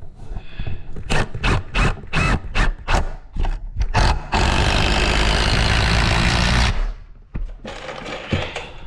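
Tool work on wood wall framing: a quick run of short sharp strokes, about four a second, then a power tool running steadily for about two seconds before it cuts off.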